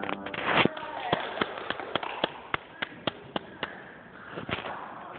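About ten sharp taps, evenly spaced at roughly three and a half a second, beating out a steady tempo. A brief rustle comes at the start, and another near the end.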